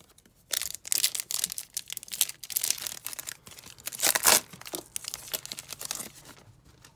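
Foil wrapper of an Upper Deck hockey card pack being torn open and crinkled in the hands, a run of crackling rips with the loudest tear about four seconds in.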